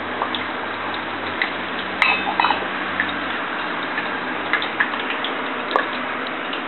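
Covered saucepan cooking on a gas hob: a steady hiss with scattered ticks and pops as its contents heat, and a short metallic clatter about two seconds in.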